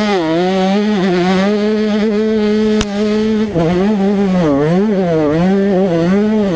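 Yamaha YZ125's single-cylinder two-stroke engine at high revs, held steady for a couple of seconds, then falling and rising several times as the throttle is rolled off and back on. A single sharp click about three seconds in.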